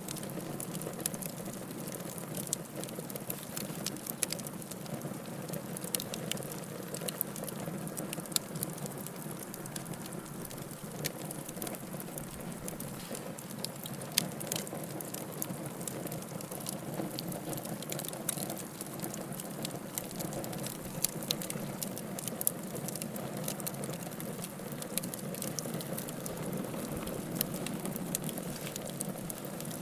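Bonfire burning, its wood crackling with many small irregular snaps and pops over a steady hiss of the flames.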